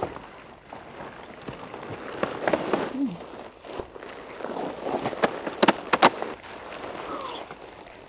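A pop-up tent being twisted and folded down by hand: its fabric and clear plastic panel rustle and crinkle while the spring frame is bent. There are several sharp snaps, the loudest a cluster about five to six seconds in.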